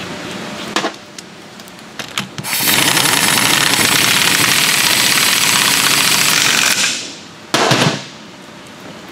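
Pneumatic impact wrench hammering on a differential's pinion nut: a couple of short clicks, then one long run of about four seconds and a short final burst near the end.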